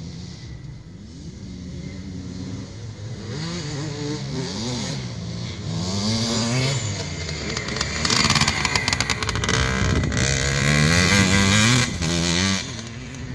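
Enduro motorcycle racing through a taped special test, its engine revving up and falling back again and again through the bends and gear changes. It grows louder as it comes closer, is loudest with a clattering edge near the end, then drops off sharply.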